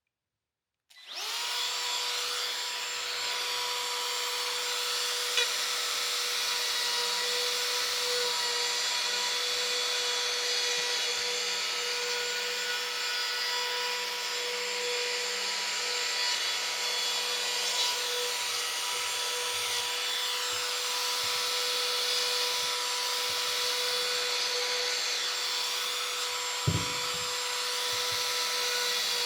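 Router with a 1/8-inch round-over bit running at steady high speed while cutting a rounded edge on hardwood, with a steady high whine. A brief low knock comes near the end.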